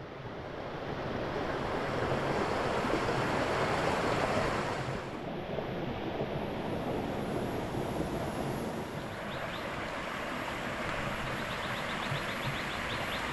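Steady rushing outdoor noise that swells in over the first two seconds and eases slightly after about five seconds, with a fast run of faint high ticks near the end.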